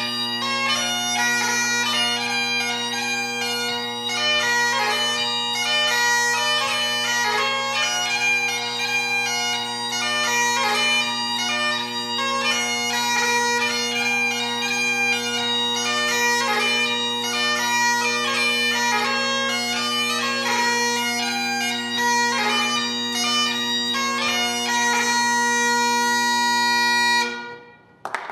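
Great Highland bagpipe played solo: a 6/8 march melody over steady drones, ending on a long held note. The chanter and drones cut off together about a second before the end.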